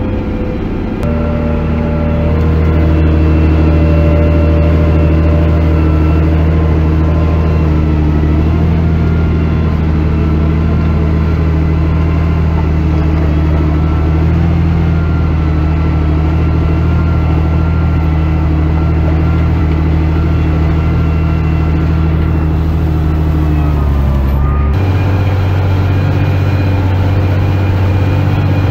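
John Deere 8410's six-cylinder diesel engine running steadily under load, with a deep droning hum and fainter higher steady tones, while the tractor pulls a disc through corn stalks. The tone shifts abruptly about a second in and again near the end.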